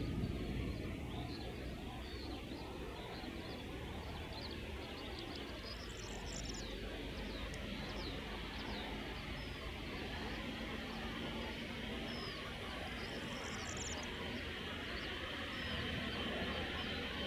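Small birds chirping in repeated quick bursts over a steady low rumble of open-air background noise.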